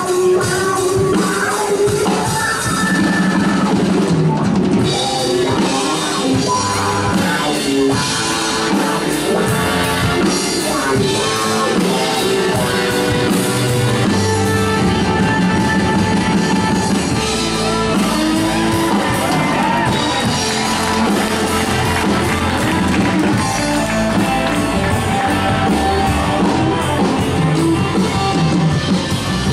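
Live roots-rock band playing: fiddle, guitar, upright bass and drum kit.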